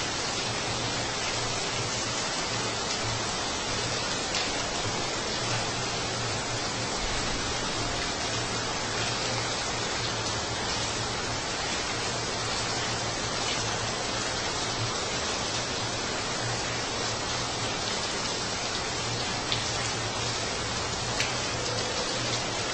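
Heavy rain falling steadily, a constant hiss with faint individual drop ticks now and then.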